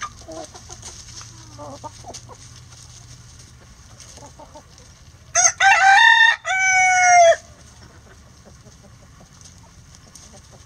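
Rooster crowing once, a loud cock-a-doodle-doo of about two seconds about halfway through, its last note falling away at the end. Hens cluck softly in the first couple of seconds.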